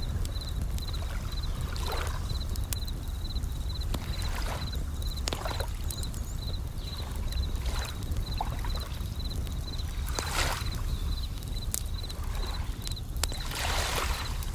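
Bell crickets (suzumushi) chirping in an even run of short high notes, about two or three a second, over a steady low rumble of surf. Every few seconds a brief wash of waves and sharp campfire crackles break through.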